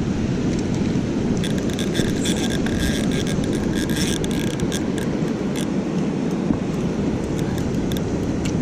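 Steady rushing of water at a dam. From about a second and a half in to about five and a half seconds, a fishing reel clicks and whirs rapidly as line is reeled in against a hooked smallmouth bass.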